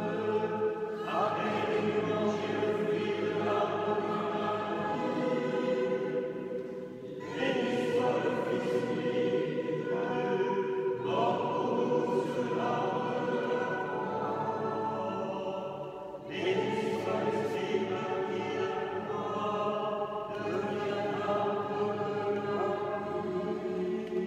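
Choir singing sacred chant in long held notes, phrase by phrase, with short breaks about seven and sixteen seconds in.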